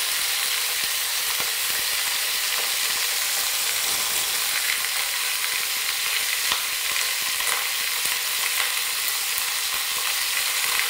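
A rolled wild boar roast searing in hot rapeseed oil in a stainless steel pot, sizzling steadily with scattered small crackles.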